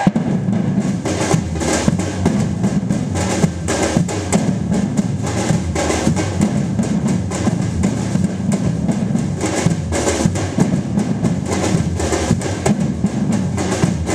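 Percussion ensemble drumming: a dense, continuous rhythm of many drum strikes with a heavy low drum underneath.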